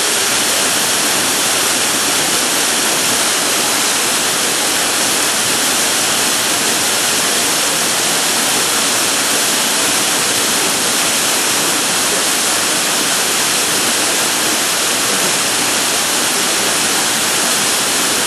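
Waterfall pouring, a loud, steady, unbroken rush of falling water heard close up.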